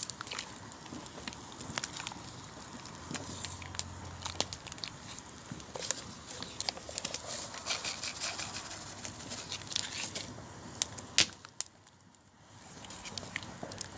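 Wood campfire crackling and popping, with one louder pop about 11 seconds in.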